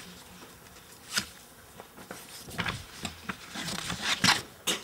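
Paper pages in a ring binder being leafed through and turned: a few short rustles, a single one about a second in and a quick cluster near the end.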